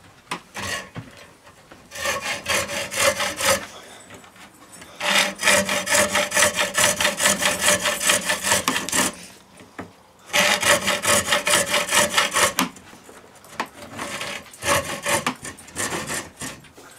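Hacksaw cutting a fiberglass rod in about four runs of quick back-and-forth strokes with short pauses between, the longest run about four seconds. The blade is working around the rod's outside to score it rather than cut straight through, so that the fiberglass does not splinter out.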